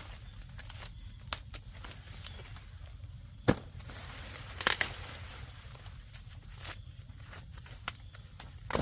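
A few sharp snaps and crackles of dry plant material, the loudest about three and a half seconds in and a quick cluster about a second later. Under them runs a steady high drone of insects.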